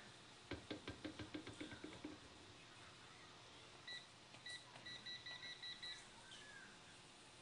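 Induction hob's control panel beeping as its buttons are pressed: a single short beep, another, then a run of about six quick beeps. Before the beeps, a quick run of about a dozen ticks.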